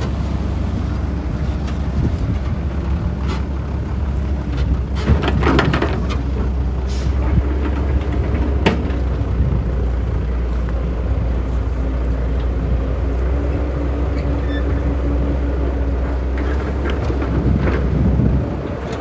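Heavy diesel construction machinery running steadily with a low engine rumble and a steady hum, with a few brief scraping or clanking noises about five to six seconds in and again near nine seconds; the rumble drops off near the end.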